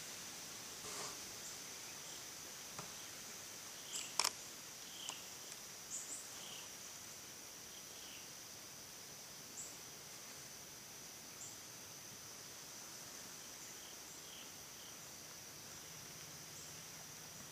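Faint woodland ambience: a steady high-pitched insect drone, with scattered short chirps and a single sharp click about four seconds in.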